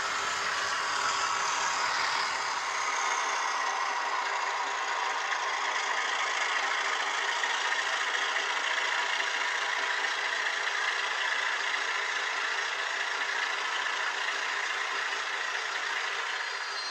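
Model freight train rolling past on the layout track: a steady rush of small metal wheels running over the rails, with a steady hum underneath.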